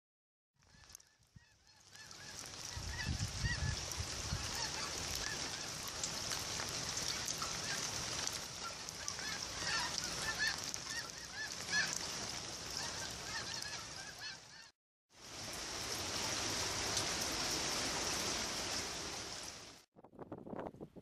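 Steady rain with many short, repeated animal calls over it, heard mostly before the first break. The sound cuts off sharply twice, where clips are joined.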